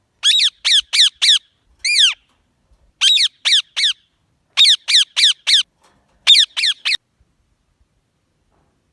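Green parrot giving shrill, harsh squawks in quick runs of three or four, about fifteen calls in all, each dropping in pitch, then stopping about seven seconds in.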